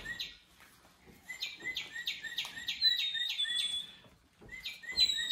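Recorded bird song from a squeezed plush toy bird: a quick run of repeated chirping notes, then a short pause and a second run.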